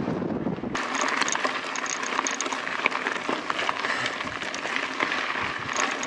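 The rear-shock lockout cable on a mountain bike rattling against the frame while riding over rough trail, an irregular clatter of small clicks over tyre and trail noise: the cable is too long and needs shortening. Wind rumble on the microphone at the very start.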